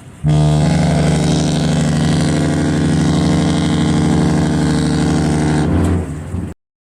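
A ship's horn sounding one long, deep blast of about five and a half seconds, which ends abruptly.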